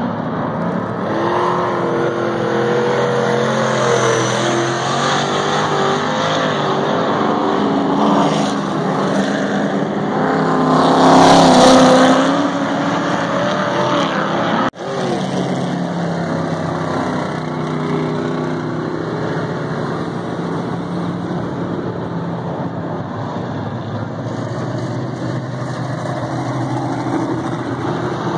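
Dirt-track stock car engines running hot laps, their pitch rising and falling as the cars accelerate and lift through the turns. The loudest moment is a car passing close about eleven seconds in, and the sound drops out for an instant about halfway through.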